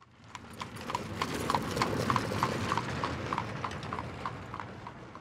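Horse's hooves clip-clopping at a steady walk, about three beats a second, over a low rumble. It fades in at the start and fades away near the end.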